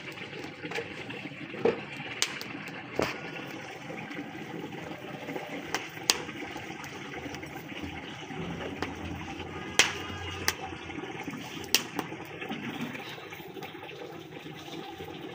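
Paratha cooking on an iron tawa over a wood fire: a steady sizzling hiss with several sharp crackles and clicks scattered through it.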